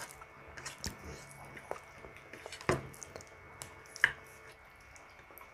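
Quiet eating sounds of someone eating by hand: chewing and lip smacks, with soft squishes of fingers working saucy pork ribs and rice on a plate. A few sharper clicks stand out, loudest about two and a half and four seconds in.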